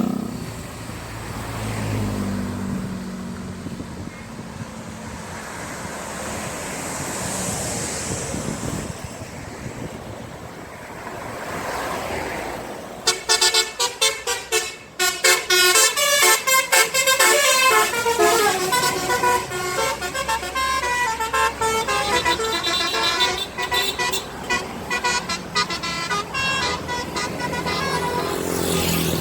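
Road traffic passing for the first dozen seconds, then a bus's multi-tone telolet horn plays a melody, starting with short choppy blasts about 13 s in and running on as a tune for about fifteen seconds.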